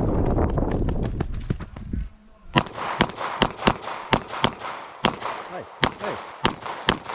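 Handgun fired rapidly in a competition stage: a fast string of sharp shots, roughly two to three a second, starting about two and a half seconds in, each with a short echo. Before the string there is a low rumble with a few fainter shots.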